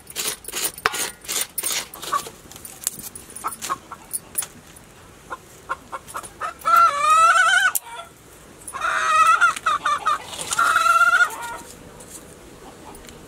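Coconut flesh being scraped with a serrated hand scraper, quick rasping strokes in the first couple of seconds. Then a chicken calls loudly three times, each call about a second long.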